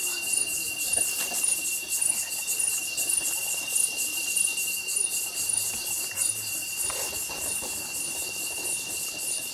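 Night insect chorus: a steady high-pitched buzz with a regular chirp about twice a second over it, and a few faint rustles.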